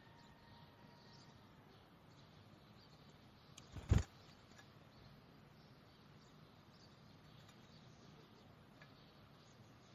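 Faint chirps of small songbirds over a low steady hiss, broken by one sharp knock about four seconds in.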